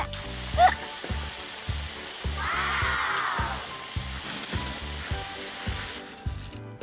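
Fire hose nozzle spraying a jet of water: a steady hiss that cuts off about six seconds in.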